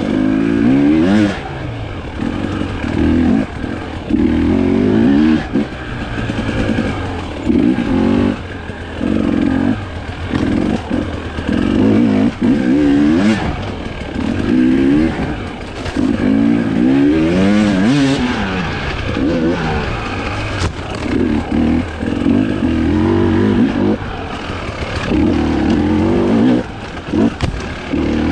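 Husqvarna TE 300i's 300 cc two-stroke single-cylinder engine revving up and down in repeated bursts as the throttle is opened and shut, with short drops between bursts and a few brief knocks.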